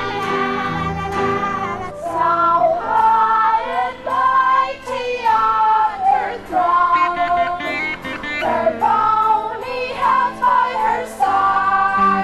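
A late-1960s song played from a vinyl record: women singing the melody, with other voices joining, over instrumental backing. It gets louder about two seconds in.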